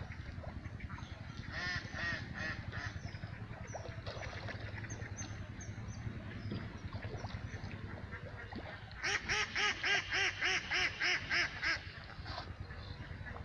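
Bird calls: a run of about ten loud, quickly repeated calls, roughly three a second, starting about nine seconds in. Scattered calls and small high chirps come before it, over a steady low rumble.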